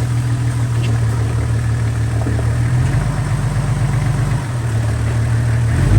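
Car engine running at a low idle, its low note turning uneven and pulsing about halfway through, with a brief loud bump at the very end.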